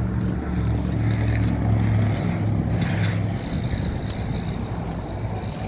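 An engine running with a steady low hum, swelling to its loudest about two seconds in and then slowly fading.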